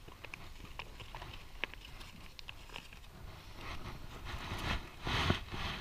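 Crinkling and rustling of aluminium foil and a butter wrapper being handled, with scattered small clicks, the rustling growing louder in the last couple of seconds.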